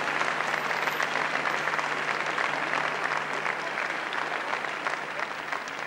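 Audience applauding: dense, steady clapping that eases slightly near the end, following an award announcement of the director's name and film.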